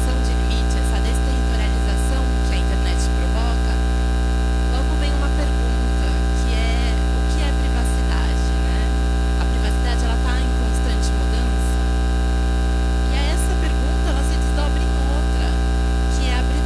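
Loud, steady electrical mains hum with a stack of overtones, unchanging throughout.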